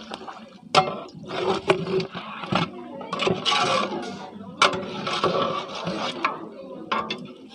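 Long metal spatula stirring mutton bones and vegetables in a large metal cooking pot: repeated scrapes about once a second, with sharp knocks of metal on the pot.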